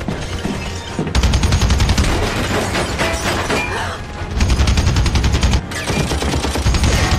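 Long bursts of rapid automatic fire from a heavy machine gun, starting about a second in and breaking off briefly twice, over film score music.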